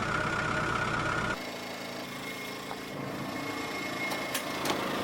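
Car engine idling steadily; about a second in the sound cuts abruptly to a quieter, steady engine hum, with a few sharp clicks near the end.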